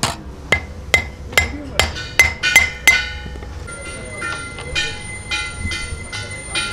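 Small hammer striking a steel truck clutch disc in sharp metallic blows, about two to three a second and speeding up over the first three seconds. After a short gap come softer, ringing strikes.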